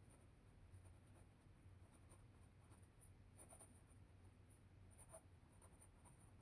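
Faint scratching of a Pilot V7 Precise liquid-ink pen writing on paper, in soft irregular strokes over a low steady hum.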